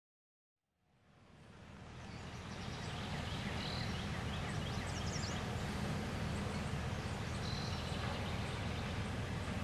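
Outdoor ambience fading in: a steady low rumble with birds chirping and calling over it at intervals.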